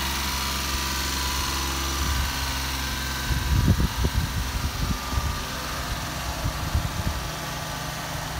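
The 657 cc three-cylinder Suzuki F6A engine of a 1992 Suzuki Carry dump truck idling steadily. A run of irregular low bumps comes over it from about three to seven seconds in.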